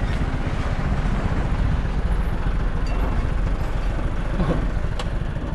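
A vehicle engine running steadily with a low rumble.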